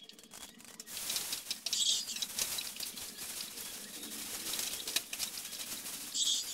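Stationary exercise bike being pedalled: a whirring, rapidly clicking mechanical noise that starts about a second in, with two short high hissing bursts, one about two seconds in and one near the end.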